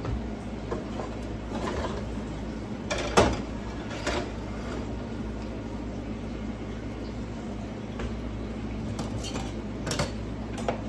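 Metal cooking utensil clinking and scraping against a frying pan as pieces of beef are stirred, a few sharp clinks with the loudest about three seconds in, over a steady low background noise.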